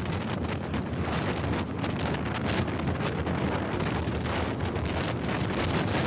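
Wind buffeting the camera's microphone, a steady gusty rumble with no break.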